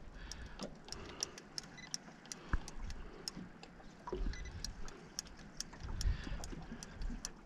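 Alvey side-cast fishing reel clicking: a string of sharp ticks, about three or four a second and unevenly spaced, as a hooked fish is played on it.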